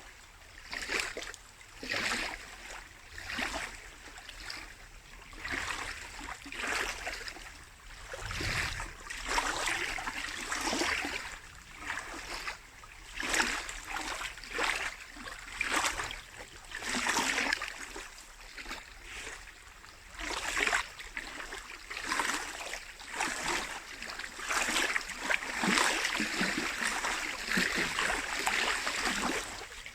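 Small lake waves lapping at the shore, splashing unevenly about once a second.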